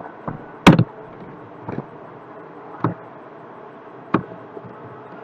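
Computer keyboard and mouse clicks: about five separate sharp clicks over a steady low hiss, the loudest a little under a second in.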